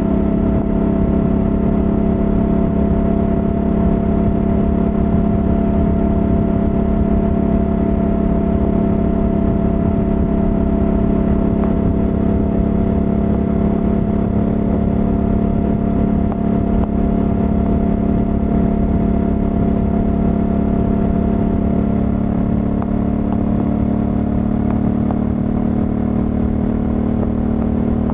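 Honda Africa Twin 1100's parallel-twin engine running steadily at motorway cruising speed on its stock exhaust, with a low rush of wind underneath. The engine note holds nearly level and rises slightly near the end.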